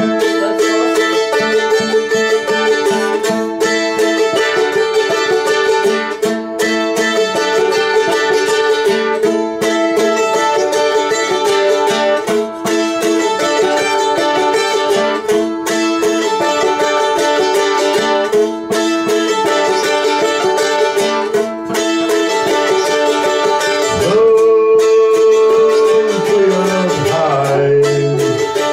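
Instrumental jam of electric guitar and violin playing together, plucked notes repeating in a short phrase about every three seconds over held notes. Near the end a note slides down in pitch.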